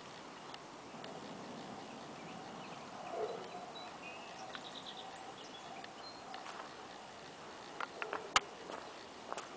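Faint outdoor ambience with a few short, high bird chirps. A cluster of sharp clicks or knocks comes near the end.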